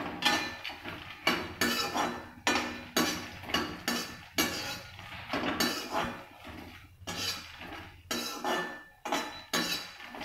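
Perforated metal slotted spoon scraping and clattering against a metal kadhai as fox nuts (makhana) are stirred and roasted in ghee, in quick repeated strokes, about two or three a second.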